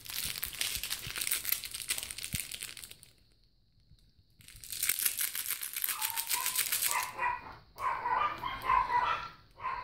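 Crinkly plush toy being squeezed and crumpled in hands: a dense crackling rustle for about three seconds, a pause, then more crinkling. Near the end come a string of short high-pitched squeaks.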